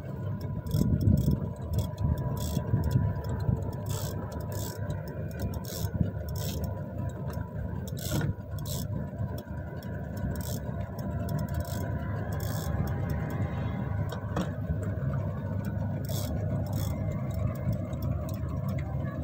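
A boat engine running steadily with a low rumble, with faint sharp ticks scattered through it.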